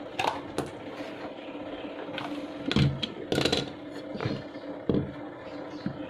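Washing machine wash motor spinning free with its pulley, a steady hum overlaid by irregular scraping knocks. It is running rough, the fault that leaves the machine turning weakly in one direction.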